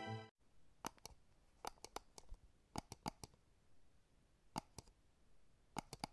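Guitar music cuts off, and then faint, sharp clicks come in pairs about once a second.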